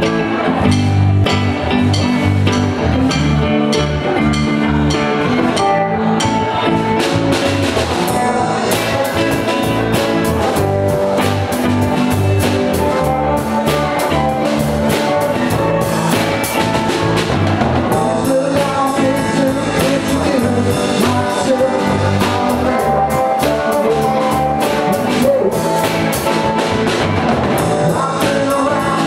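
Live rock band playing with two electric guitars and a drum kit. Steady cymbal strokes ride over the guitars from about nine seconds in.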